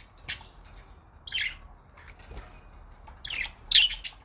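Pet budgerigars chirping in short, high calls: a couple of scattered chirps, then two louder ones close together near the end.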